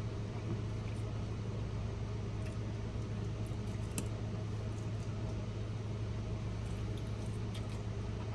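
A steady low hum fills the room, with faint clicks and mouth sounds of someone chewing and pulling apart a fried chicken wing.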